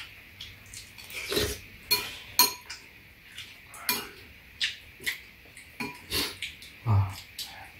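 Metal spoons clinking and scraping against ceramic bowls at an irregular pace, with eating noises in between as soft tofu stew is spooned up and eaten.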